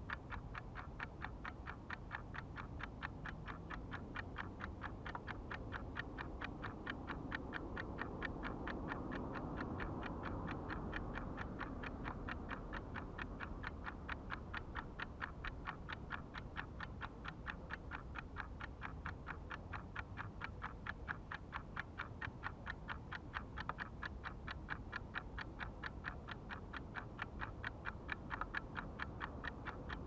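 Steady, evenly spaced ticking, several ticks a second, over a low background rumble that swells briefly about ten seconds in.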